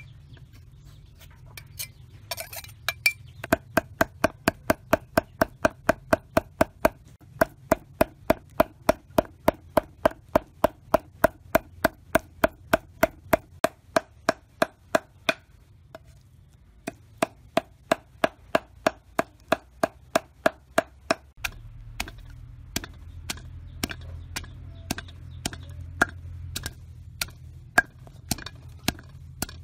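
Knife chopping fish into a paste on a wooden chopping block, quick even strokes at about four a second with a short pause partway through. Near the end come slower, uneven knocks of a wooden pestle pounding herbs in a stone mortar.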